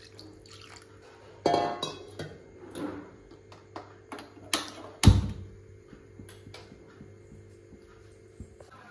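Soft background music with held tones and plucked notes, with a few clinks and knocks over it, the loudest a dull thump about five seconds in.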